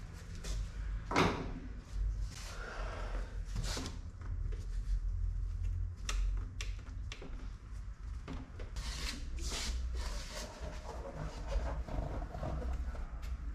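Intermittent clicks, knocks and scraping from hands working on a car door's electric window mechanism, with the sharpest knock about a second in.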